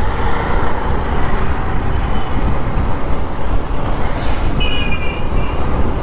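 Road traffic noise with a heavy low rumble, and a short high-pitched horn beep about four and a half seconds in.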